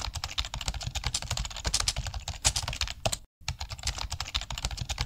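Ballpoint pen writing on lined notebook paper: a dense run of quick scratching strokes and taps against the page. It drops out for an instant about three seconds in, then carries on.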